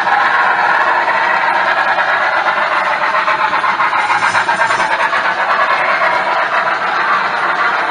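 HO-scale model freight train rolling along the track, heard up close from a camera riding on one of its hopper cars: a steady, loud rolling noise with fine, rapid clicking.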